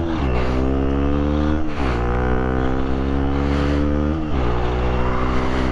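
Motorcycle engine accelerating up through the gears, with wind rushing past. The pitch climbs, drops at upshifts about 1.7 and 4.2 seconds in, climbs again after the first shift, and holds steady after the second.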